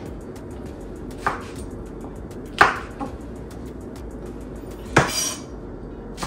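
Chef's knife knocking on a wooden cutting board while slicing green chillies: a few sharp knocks at uneven intervals, the loudest about two and a half seconds and five seconds in.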